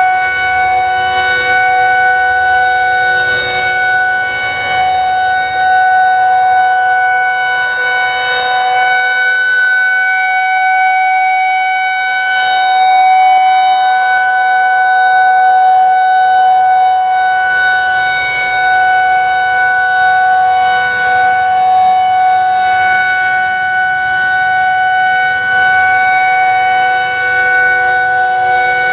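Federal Signal 2001-130 rotating outdoor warning siren sounding a steady dual-tone chord, which is the alert signal of its test. The pitch holds steady, and the loudness rises and falls gently.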